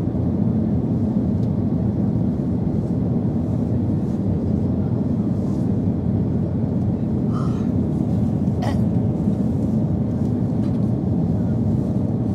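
Steady jet airliner cabin noise in cruise: engine and airflow noise as a constant low rush heard at a window seat, with a faint brief click about nine seconds in.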